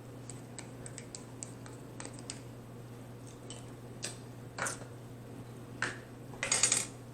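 Handling noises at a table while salsa and sour cream go onto tacos: a scatter of small clicks, then a few short crinkling rustles, the loudest cluster near the end. A low steady hum lies underneath.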